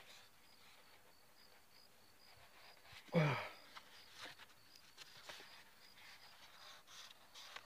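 Small latex balloon being blown up by mouth and knotted. About three seconds in comes one loud, short squeal that falls steeply in pitch. After it come faint rubber squeaks and small clicks from handling the neck.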